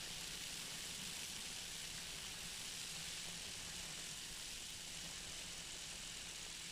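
Flexwing microlight trike in flight on its landing approach: a steady rush of wind with the engine running low underneath it.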